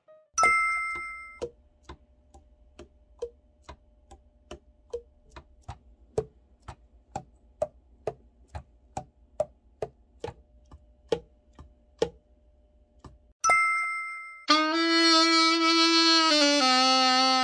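A chime, then saxophone keys pressed and released so that the pads tap shut on the tone holes, about twice a second, in a leak test after an overhaul. After a second chime, the Selmer Super Action 80 alto saxophone is played, held notes stepping down through a phrase.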